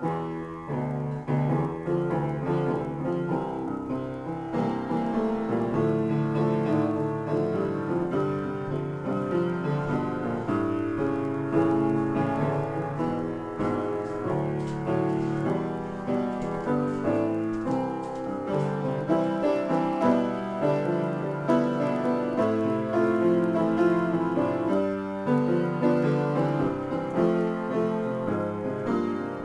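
Upright piano played solo in an improvisation: a continuous stream of notes and chords, mostly in the low and middle range.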